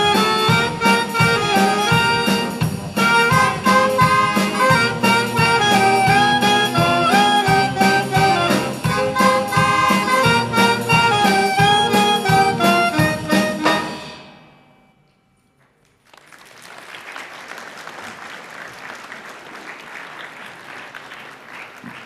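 School wind band of trumpets, saxophones, trombones, tuba and drum kit playing a lively piece with a steady beat, which fades out a little over halfway through. After a moment of near silence, applause follows.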